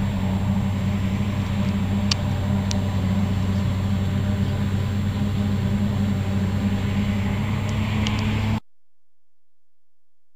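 Heavy farm machinery running at a steady speed: a deep, even diesel engine hum with two light clicks a couple of seconds in. It cuts off abruptly to silence about a second and a half before the end.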